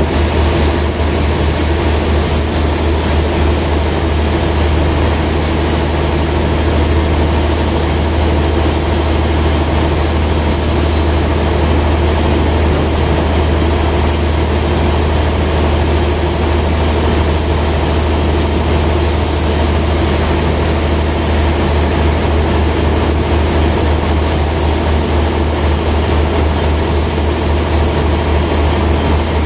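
Sawmill machinery running steadily with a deep, even hum, not cutting.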